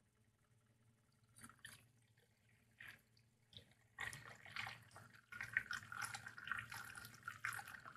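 Tap water in a beaker being churned by a magnetic stirrer's spinning stir bar. A few short scattered sounds come first, then from about halfway on a continuous, irregular bubbling and sloshing as the water swirls, mixing air into the sample.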